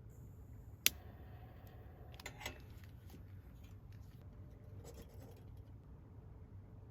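Small handling sounds: one sharp click a little under a second in, then a couple of lighter clicks and scrapes, over a faint low hum.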